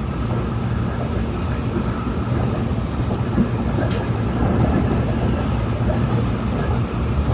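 Steady running noise of a SMART diesel multiple-unit commuter train heard from inside the passenger car: a low hum over rumble, with a single short click about four seconds in.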